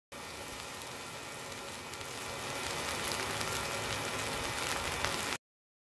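Raw eggs sizzling and crackling as they fry on the hot lid of a forge. The sizzle grows louder about two seconds in and cuts off suddenly near the end.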